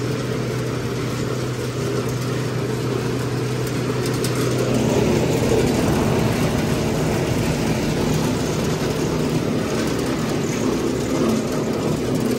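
Electric pepper-threshing machine running steadily as fresh black-pepper branches are fed through it: a constant motor hum under the busy noise of the drum stripping the green berries from their stalks.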